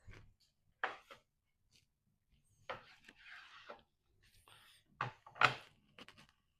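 Handling sounds while a smoked brisket is readied for slicing: a few sharp knocks and clatters, the loudest near the end, with a brief rustle in the middle.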